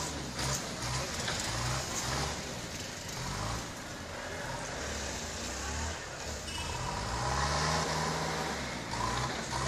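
A motor vehicle's engine running at low pitch, rising and falling as it revs, over a steady rushing background noise.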